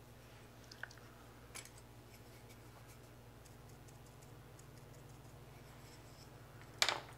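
Faint scratchy ticks and small clicks of a paintbrush working dry paint onto a plastic model cockpit part, over a steady low hum, with a short louder hiss near the end.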